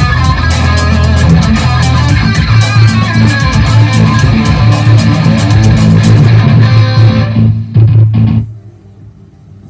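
Electric guitar played through effect stomp boxes, dense and loud, breaking off with a couple of last hits about eight seconds in. A low steady hum is left after the playing stops.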